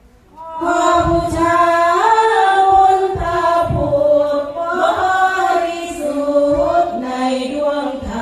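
Sarapanya, an Isan Buddhist devotional chant-song, sung by a group of women's voices together without instruments. It starts about half a second in after a short pause and moves in long held notes that slide from pitch to pitch.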